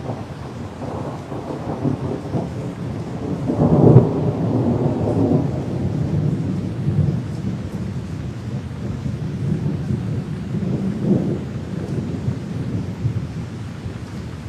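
Thunder rolling through a rainstorm over steady rain. It peaks about four seconds in and swells again around eleven seconds.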